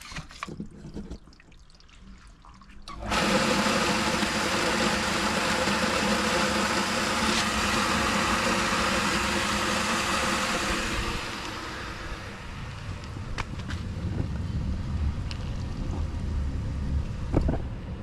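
Pool water pump switched on about three seconds in, running with a motor hum and water rushing through the hose; the rush eases a little partway through.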